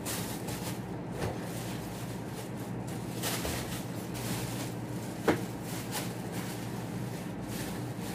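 Household tidying sounds: cloth and bedding rustling and small objects being handled and set down, with a sharp knock about five seconds in, over a steady low hum.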